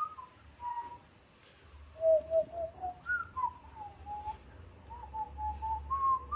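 A person whistling a tune by mouth: a single clear note moving up and down in pitch from phrase to phrase, with a short break about a second in.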